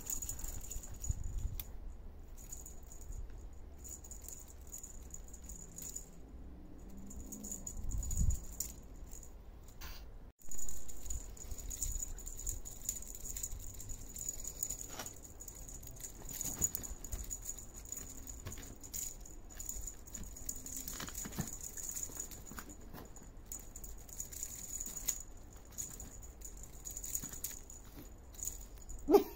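Kittens playing in a box of plastic ball ornaments, foil and tinsel: scattered light rattling, tapping and rustling as the balls and toys are knocked about, with a couple of louder thumps.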